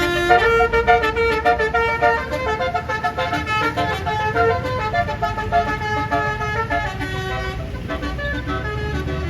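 Bus telolet horn, a Basuri-type multi-tone air horn, playing a quick tune of rapidly changing notes over the low rumble of the engine. The notes thin out after about seven seconds.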